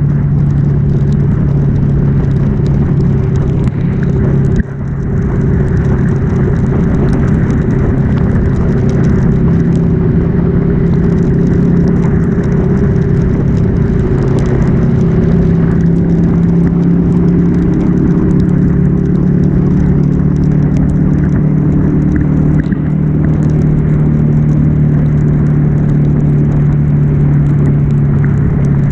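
Ducati Monster S2R's air-cooled L-twin engine running steadily at highway cruising speed, its note dipping briefly about four and a half seconds in. A steady hiss of spray from the wet road runs underneath.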